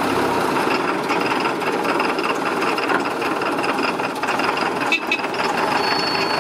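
1936 Leyland Tiger TS7 bus engine running steadily, just after starting first time.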